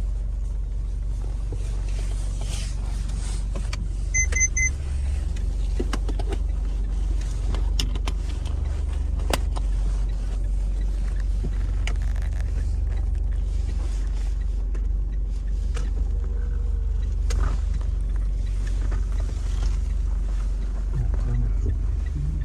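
Mitsubishi Pajero Sport engine idling, heard from inside the cabin as a steady low hum. About four seconds in the car gives a short run of high electronic beeps, and a few faint clicks and knocks come through the cabin.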